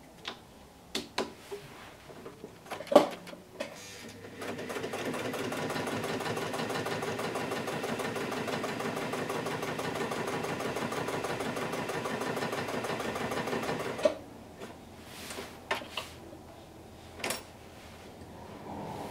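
Electric Jones sewing machine stitching through a strip of leather, running steadily for about ten seconds with a fast, even run of needle strokes. Scattered clicks and knocks before and after, as the leather is set under the foot and drawn out.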